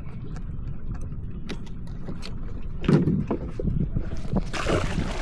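Clicks and knocks on a kayak over low wind rumble on the microphone, with a heavier thump about three seconds in and a broad rush of noise near the end.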